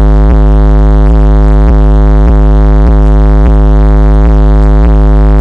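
Four 12-inch car-audio subwoofers (two Kicker, two Audiobahn) in the back of a Jeep, pounding out a long, deep bass note from a hip-hop track. It is loud enough that the phone microphone clips into a steady distorted buzz, with a faint beat pulsing through it a little under twice a second.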